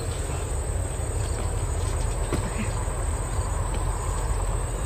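Insects trilling in a steady, continuous high-pitched buzz, over a low rumble.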